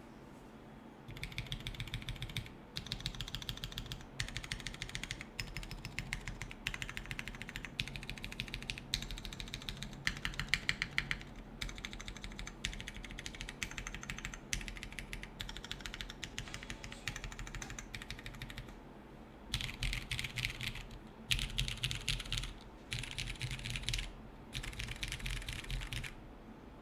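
Typing on a Kalamkorn mechanical keyboard with lubed and filmed Cherry MX Purple switches in an O-ring-mounted aluminium plate, no foam, and GMK keycaps. Runs of fast keystrokes come in bursts of a second or two, with a longer pause about two-thirds of the way through.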